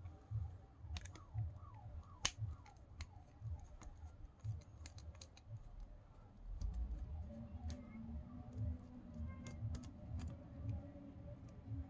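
Faint scattered metal clicks and taps, with a few small squeaks, as the retaining screw in a Shimano Stradic spinning reel's handle knob is undone with a small screwdriver.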